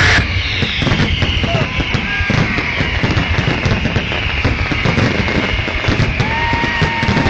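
Fireworks display: a dense, continuous run of bangs and crackling from bursting aerial shells, with music playing along underneath.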